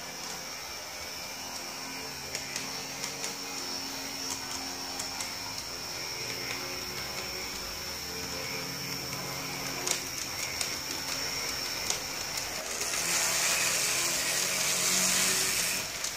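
Model tram's small electric motor running with a steady high whine and low hum, with scattered clicks as the wheels run over rail joints and points. A louder rushing hiss comes in for about three seconds near the end.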